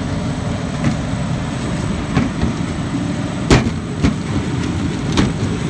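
PMI GR-35D shrink bundler with its integrated shrink tunnel running: a steady, loud machine noise with several sharp clacks, the loudest about three and a half seconds in.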